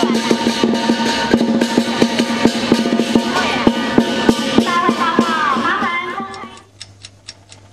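Intro background music with a steady drum-kit beat and a swooping melodic line. It fades out about six seconds in, leaving faint regular ticks about four a second.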